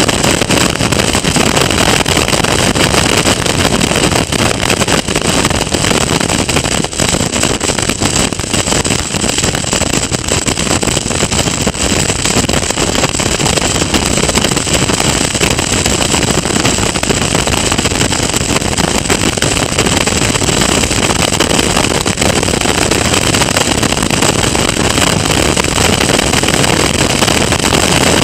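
Caterham Seven Academy race car at racing speed, its engine running hard under the heavy rush of wind over the onboard camera's microphone, steady and unbroken.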